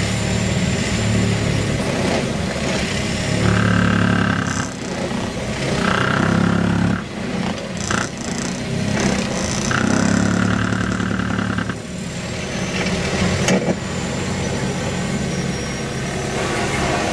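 Road-rail excavator's engine running, working harder three times, from about three and a half, six and ten seconds in, each time with an added whine.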